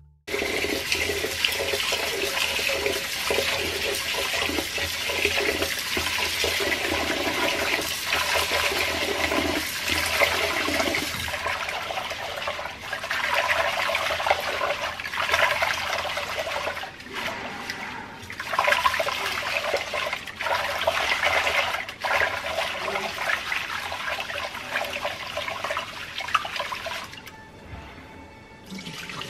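Water rushing and sloshing as rice is rinsed by hand in a Cuckoo rice cooker's inner pot at a stainless steel sink. It dies down near the end as the rinse water is tipped off.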